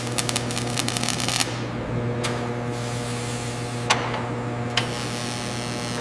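Electric welding on a steel shell: a dense spitting crackle for about the first second and a half over a steady low electrical hum. The hum runs on, broken by a few single clicks.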